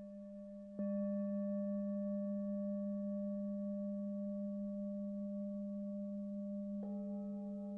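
Tibetan singing bowls ringing: a bowl is struck with a mallet about a second in and rings with a steady low hum and higher overtones, slowly fading. Near the end a second bowl of a different pitch is struck and rings along with it.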